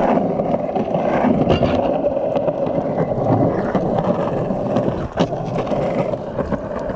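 Cruiser skateboard's wheels rolling over a concrete sidewalk, a steady rumble, with one sharp knock about five seconds in.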